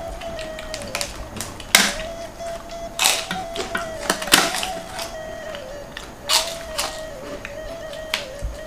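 Kitchenware clattering: about half a dozen sharp clinks and knocks of metal or ceramic utensils, spread unevenly, over background music.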